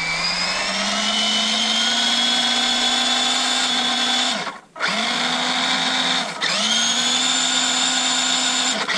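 ZOWFUN Mobius 1:16 RC tow truck's 380 brushed electric motor and freshly greased four-wheel-drive gear train whining as they spin the wheels in the air. The pitch rises over the first second. The motor stops and spins back up three times: about halfway, about two-thirds in, and near the end.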